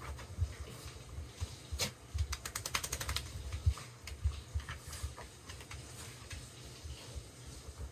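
Wet beagle scrabbling and rubbing itself on bath towels on the floor: irregular dull thumps and scratching, with a quick run of about ten sharp clicks a little over two seconds in. A room heater runs underneath.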